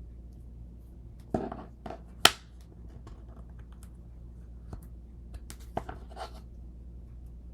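Scattered light clicks and scrapes of small glass pieces and hand tools being handled on a work table, the sharpest click a little over two seconds in, over a steady low hum.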